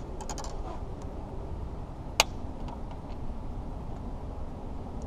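Handling noise as a just-caught bass is unhooked and held up on a boat deck: a few light clicks near the start and one sharp click about two seconds in, over a steady low rumble.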